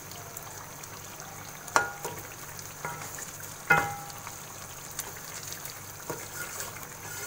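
Chicken in a yogurt and spice masala sizzling as it is fried down in a pan until the yogurt's water dries off. A spatula stirs and scrapes through it, knocking sharply against the pan twice, about two and four seconds in, each knock ringing briefly, with lighter taps in between.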